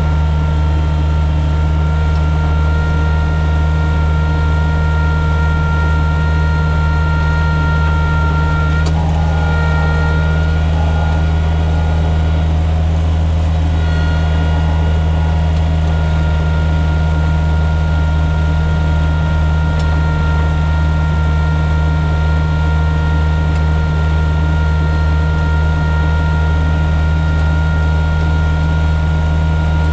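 John Deere 1445's diesel engine running steadily under load, driving the front-mounted snowblower, heard from inside the cab. It is a low drone with a steady whine above it; the whine wavers briefly about nine seconds in and settles again about fourteen seconds in.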